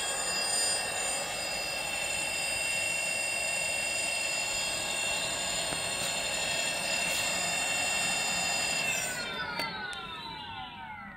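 Leaf 60V 2000W brushless rear hub motor spinning a 20-inch wheel freely at high speed: a steady high-pitched electric whine over a whirring hiss. About nine seconds in the whine falls steadily in pitch as the wheel winds down.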